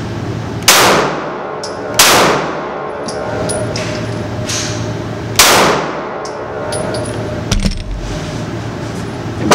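Three 9mm pistol shots from a Glock semi-automatic handgun: two about a second apart, then a third about three seconds later. Each is a sharp crack with a short ring of reverberation in the range booth, over a steady low hum, and another shot comes right at the end.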